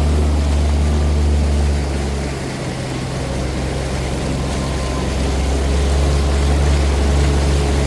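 Vehicle engine running with a low steady hum that dips about two seconds in and returns, over a steady hiss of rushing floodwater.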